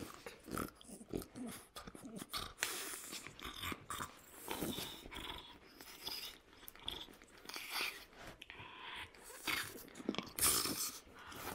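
French bulldog vocalizing and chewing at a spiky rubber ball toy, in an irregular run of short noisy bursts and clicks.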